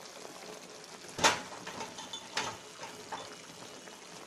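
Shahi tukda mixture of bread, sugar syrup, milk and khoya cooking in a pan with a faint steady sizzle. A sharp click comes about a second in, then a few lighter clicks.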